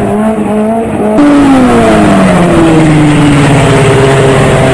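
Stunt motorcycle's engine running. About a second in it gets suddenly louder, then its pitch falls steadily as the revs drop and settles to an even tone.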